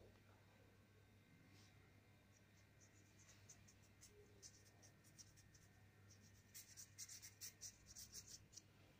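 Faint scratchy strokes of a paintbrush on the painting surface: scattered short strokes at first, then a quicker, louder run of them in the last few seconds.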